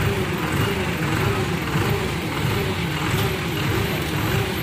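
Hydra crane's diesel engine running steadily during a lift, with a whine that wavers up and down about twice a second.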